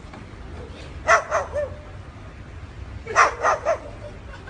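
White cockatoo barking in imitation of a dog: three short barks in quick succession about a second in, then another three about three seconds in.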